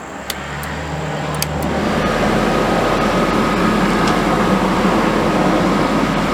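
Dometic RV furnace blower fan motor spinning up over about two seconds and then running steadily with a faint steady tone, with a few light clicks near the start. This is the start of an ignition cycle on a furnace that would not light, run with the sail switch held closed.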